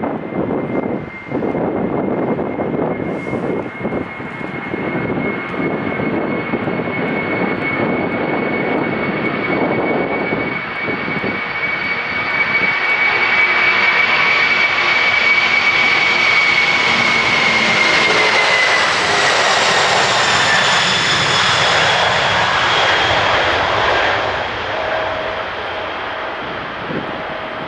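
Boeing 747-400's four GE CF6-80C2 turbofan engines at takeoff thrust during the takeoff roll: a high whine over a broad rumble that grows louder as the jet passes close. About two-thirds of the way through, the whine falls in pitch as the aircraft moves away down the runway.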